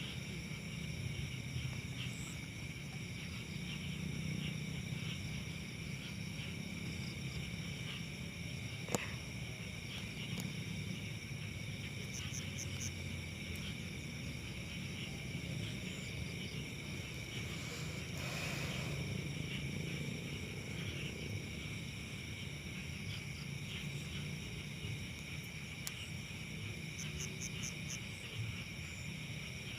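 Night insect chorus: crickets and other insects trilling steadily at several high pitches over a low rumble. A single sharp click comes about nine seconds in, and a short hiss comes a little past halfway.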